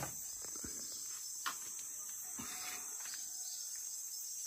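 Steady high-pitched chorus of insects. A sharp click sounds at the very start and a fainter click about a second and a half in.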